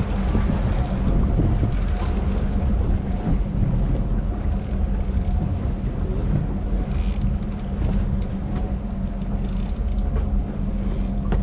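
Fishing charter boat's engine running steadily while trolling, a constant low rumble with a faint steady whine above it.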